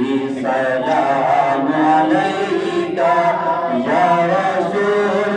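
Unaccompanied Urdu naat singing: a sustained, wordless vocal passage with several layered voices moving together, choir-like, with no instruments.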